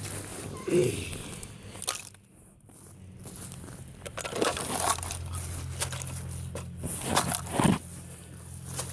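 Ice crunching and cracking: a string of irregular crunches.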